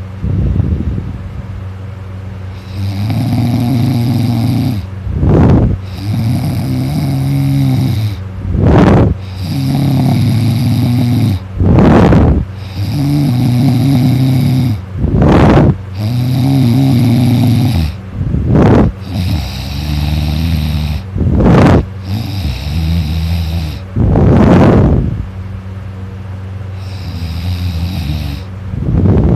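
A person snoring loudly in sleep: each long snore is followed by a short, sharp, noisy breath, in a steady cycle of about one breath every three seconds.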